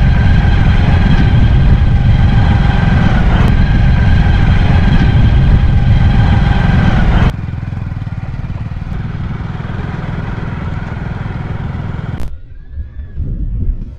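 A machine running steadily, with a low rumble under a steady whine. The sound drops to a lower level about seven seconds in and cuts off abruptly about twelve seconds in.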